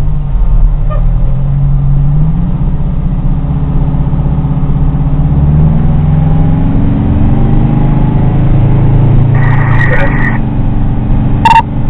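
Fire engine's engine running, its pitch slowly rising and falling with the revs, heard from inside the rig. A brief higher-pitched sound comes about ten seconds in, and a sharp click near the end.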